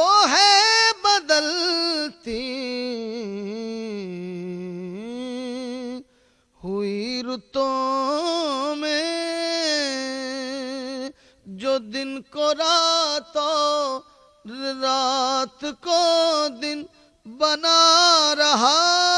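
A man singing an Urdu hamd (devotional praise of God) alone into a microphone. He draws out long, wavering held notes and gliding ornaments, with short breath breaks, and rises to a long held high note near the end.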